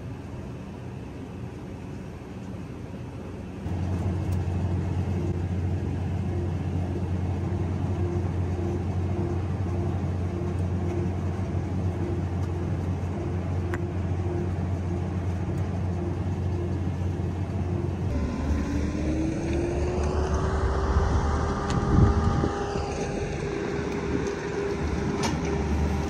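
Massey Ferguson 5S.145 tractor engine running steadily as it pulls a small square baler through straw, with a regular beat about twice a second. About eighteen seconds in the sound changes to another engine whose pitch rises and then holds.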